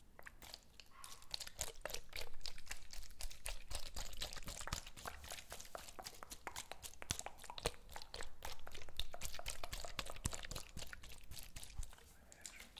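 Fingers tapping and handling a small plastic spray bottle, a dense run of crisp clicks and crackles that stops about a second before the end.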